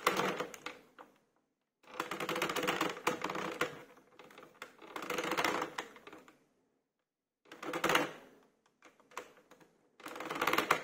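Plastic circular knitting machine advanced in short spurts, its needles clattering through the cam track in bursts of rapid clicks with brief pauses between. The pauses are where the two yarns are swapped, one stitch at a time, for a Fair Isle round.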